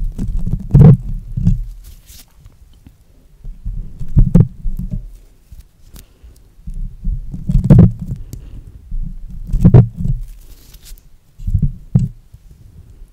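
Mesh stress ball with gel bulging through its netting, squeezed and worked right against a microphone. It makes dull, low squishy thuds at irregular intervals, about half a dozen, with a faint crackling rustle between some of them.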